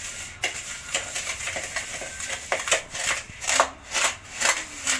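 Spoon scraping and rubbing round a plastic mixing bowl as margarine and sugar are creamed together by hand. Repeated strokes, sharper and louder in the second half at about two a second.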